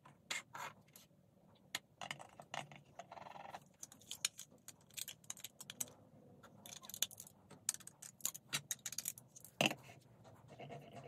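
Lego Duplo plastic bricks and animal figures clicking and clattering as they are handled, snapped together and stacked on a curved rocker base: many sharp clicks at an uneven pace.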